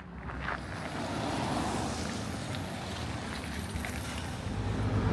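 City bus close by: a rush of engine and road noise that swells over the first second or two and then settles, with a low engine hum building near the end.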